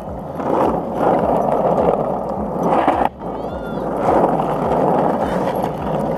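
Skateboard wheels rolling on an asphalt path: a steady, rough rumble, with a brief break about three seconds in.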